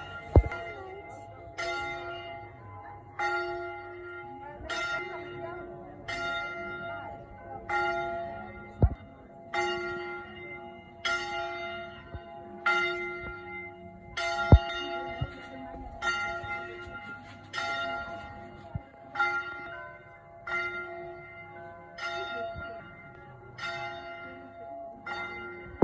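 A church bell tolling steadily, one stroke about every one and a half seconds, each ringing out and fading before the next. A few sharp knocks cut in, the loudest about half a second in and about fourteen seconds in.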